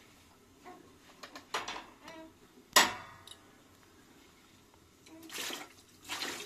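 Water poured from a plastic jug into a bowl of rice to rinse it, splashing in two short pours near the end. About three seconds in, a single sharp clank of kitchenware, the loudest sound, with a few lighter clicks before it.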